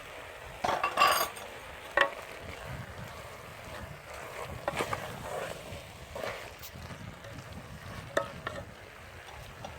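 A spoon knocking and scraping in a cooking pot as spices are stirred into simmering beef, a few sharp knocks scattered over a steady hiss.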